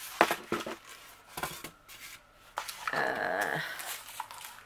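A cardboard craft box and its plastic bags of sequins being handled, with rustles and small knocks as the inner tray is lifted off a polystyrene board. About three seconds in comes a drawn-out sound, a bit under a second long, whose pitch wavers.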